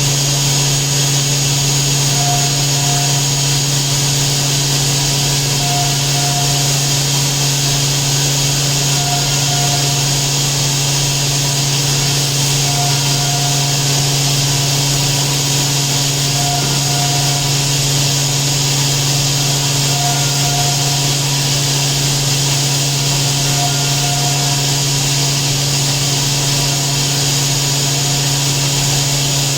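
Hurco VMX 30 vertical machining center running with a loud, steady mechanical hum and hiss, and a faint short double tone repeating about every three and a half seconds.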